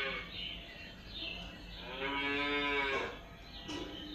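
Cow mooing: the end of one moo at the start, then one long moo about two seconds in.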